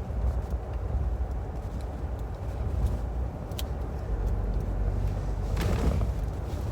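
Steady low road rumble inside a moving car's cabin, with a single small click about three and a half seconds in.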